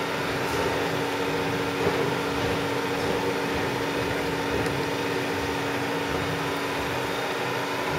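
Steady hum of a powered-up Butler Elgamill CSN10 bed milling machine: several steady tones over an even mechanical drone. A couple of faint clicks come from keys being pressed on its Heidenhain TNC415 control panel.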